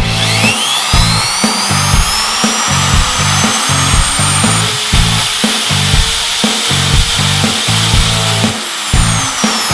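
Holzmann OBF 1200 hand router's motor spinning up with a rising whine, running at high speed, and winding down with a falling whine near the end, over rock music with a steady beat.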